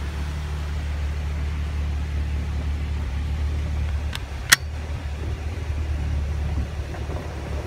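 Jeep driving a trail, heard from inside the cab: a steady low rumble of engine and tyres, with a sharp knock about four and a half seconds in.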